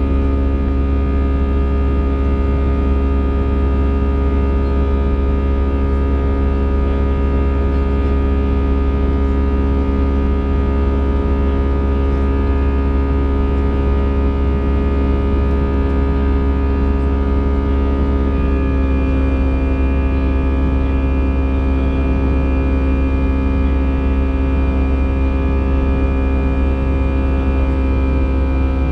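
Airbus A320 cabin noise: a steady low drone of jet engines and airflow, carrying several held tones. About eighteen seconds in, the engine tones shift to a new pitch and a higher whine joins them.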